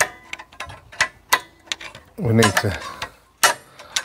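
Irregular metallic clicks and ticks as a screwdriver is worked through the access hole in a van's rear brake disc, turning the handbrake shoes' star-wheel adjuster to back the shoes off. The sharpest click comes about three and a half seconds in.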